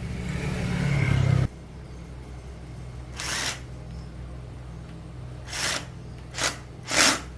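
A small engine running and growing louder, then cutting off suddenly about a second and a half in. Afterwards a steady low hum continues, with several short hisses.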